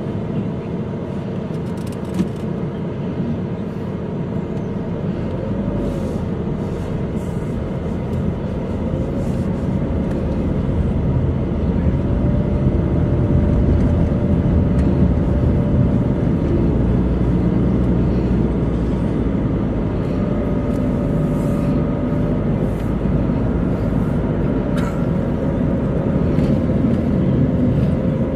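Engine and road noise heard from inside a moving car's cabin: a steady low rumble that grows louder about ten seconds in as the car picks up speed.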